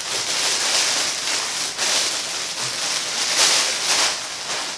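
Clear plastic packaging crinkling and rustling continuously as it is handled and a baby outfit is pulled out of it.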